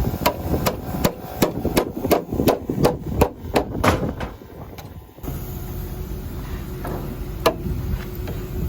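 Hammer driving nails into metal purlin hangers: a quick run of sharp strikes, about three a second, then a pause and one more single blow near the end.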